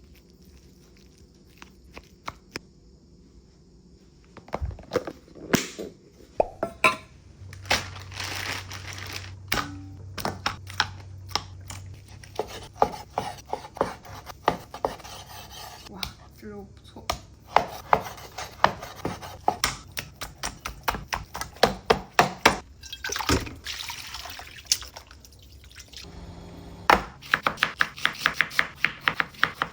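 Kitchen prep: a knife knocking on a cutting board with scattered clinks and knocks of utensils, then fast, even chopping at about five strokes a second near the end.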